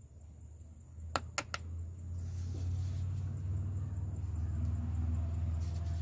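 A spoon clicks sharply three times against the spice box a little over a second in, then a low, steady rumble builds from about two seconds on and stays.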